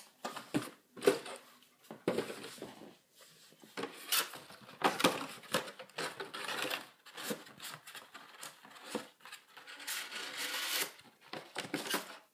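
Handling noises: irregular clicks, knocks and light clattering of small objects being moved by hand, with a longer rustle near the end.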